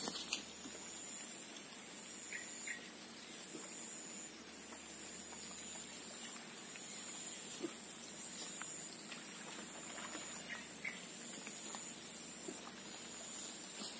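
A steady, high insect buzz, crickets or cicadas, over a quiet swamp background, with a few faint ticks.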